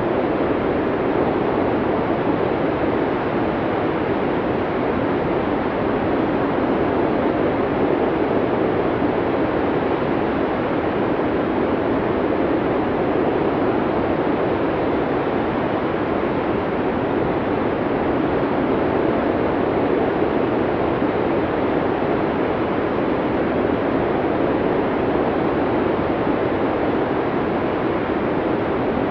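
Snowstorm wind: a steady, low, even rushing noise with no gusts or breaks.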